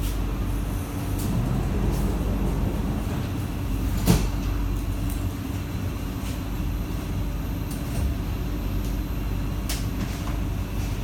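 Interior of an SMRT C151B electric train running: a steady low rumble with a faint held hum and scattered clicks, and one sharp knock about four seconds in.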